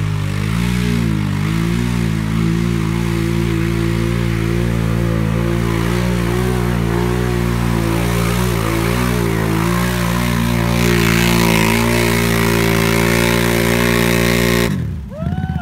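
ATV engine running hard at high revs, its pitch dipping and recovering slightly, as the spinning tyres churn through deep bog mud under heavy load. Near the end the steady engine note breaks off abruptly.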